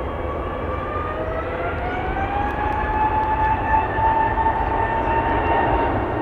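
Jet airliner's engines running, a whine rising in pitch over the first few seconds as they spool up, then holding steady over a low rumble and rushing noise.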